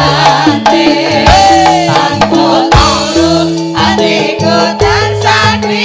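Live campursari band music: a voice singing a wavering melody over held bass notes and a steady beat of drums.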